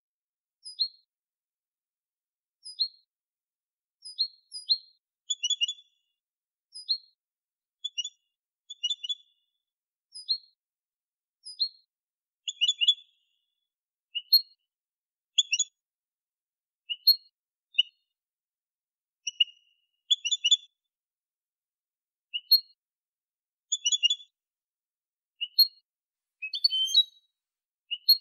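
European goldfinch singing in short, separate chirping phrases every second or two, some single notes and some quick clusters of two or three, with clean silence between them: clean ('limpio') goldfinch song.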